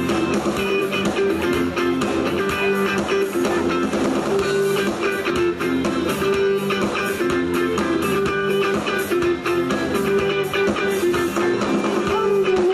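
Amplified live band music led by guitar, with sustained notes over a steady run of strokes.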